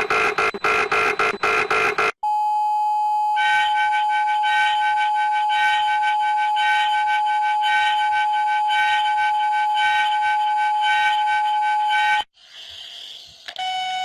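Electronic emergency alert tones. A fast pulsing beep cuts off about two seconds in. A steady single tone then starts, with rapid rhythmic beeps layered over it from about three seconds in, and it stops suddenly about twelve seconds in. After a brief hiss, a new steady tone with a low hum under it begins near the end.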